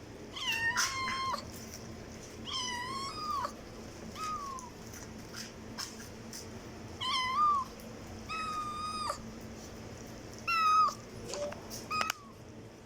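A cat meowing loudly and repeatedly: about seven separate high-pitched meows, each under a second long, some bending up then down in pitch.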